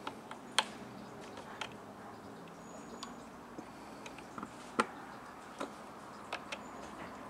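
Irregular sharp clicks and knocks of hard 3D-printed PETG plastic parts being handled and set against each other, with the loudest ones about half a second in and just before five seconds.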